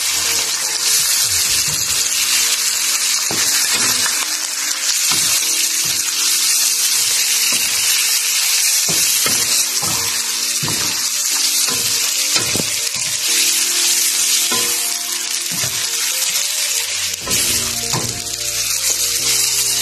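Raw chicken pieces sizzling in hot oil in a pan, a steady hiss of frying, broken by irregular knocks and scrapes as a wooden spatula stirs and turns the meat.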